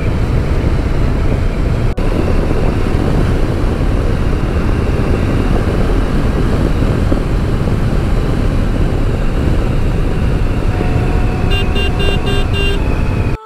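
A KTM 390 Adventure's single-cylinder engine running as the motorcycle is ridden, with wind and road noise on the bike-mounted microphone. The sound drops out for an instant about two seconds in. Near the end comes a quick run of about six short beeps.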